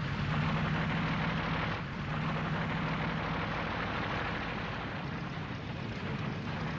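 A steady engine drone with a low hum under a broad rushing noise. It starts abruptly and runs on evenly.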